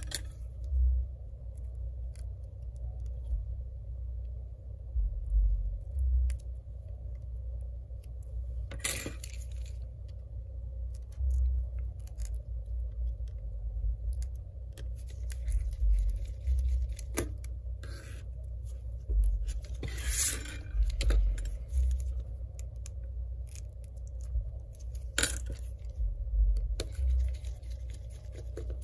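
Small metal tools clicking and scraping now and then against an iPad's frame as the Phillips screws holding the LCD are undone, with one longer scrape partway through, over a steady low hum.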